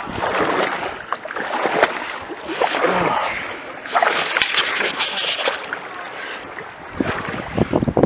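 Muddy pond water sloshing and splashing as people wade waist-deep through it, swelling and fading with each stride.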